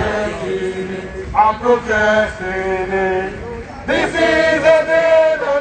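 Protest chant sung by voices, with long held notes in a repeated call.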